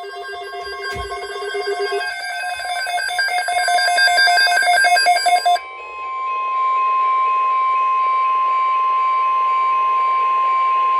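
Rapidly pulsing electronic beeping in several stacked tones, cutting off about five and a half seconds in. After a moment of static, a NOAA Weather Radio warning alarm tone sounds: one steady 1050 Hz tone over faint radio hiss.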